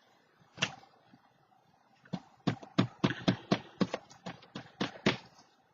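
A single light tap, then a quick run of about fifteen light taps at some five a second, as fingers tap and pat a glued paper piece down onto the journal page.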